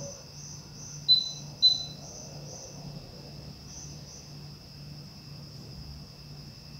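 Two computer mouse clicks, about half a second apart, a little over a second in, over a steady background of chirring crickets.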